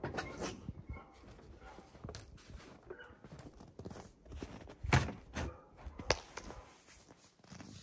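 Scattered knocks and thuds of objects being handled, loudest a heavy thump about five seconds in and a sharp knock about a second after it.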